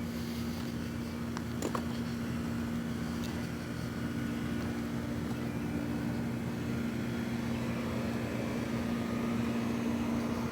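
A steady, low mechanical hum of an idling engine or running machine, with a few faint clicks about one and a half seconds in.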